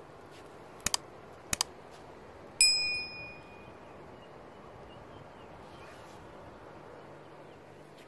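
Two quick double clicks, then a single metallic ding that rings out and fades over about a second.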